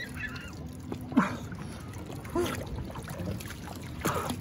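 Sea water sloshing and splashing around a diver at the surface, with a few short, sharp sounds, the loudest a little over a second in.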